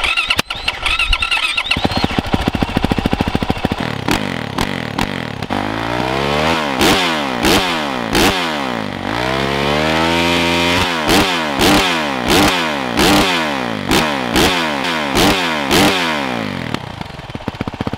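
2023 Yamaha YZ450F single-cylinder four-stroke engine through its stock exhaust, idling with a fast, even firing patter. From about five seconds in it is revved: a few quick throttle blips, one longer rev that rises and falls, then a rapid string of short blips before it drops back to idle near the end. For a stock 450 it is one of the quieter ones.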